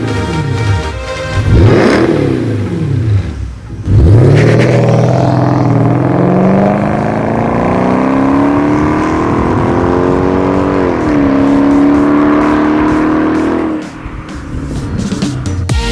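Mercedes SL550's V8 engine revving: two quick revs up and down, then a hard acceleration with the pitch rising for about seven seconds, a drop at an upshift, and a steady pull before it falls away near the end.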